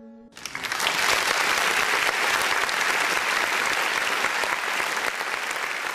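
Audience clapping, starting abruptly just after the last acoustic guitar chord dies away at the end of a song.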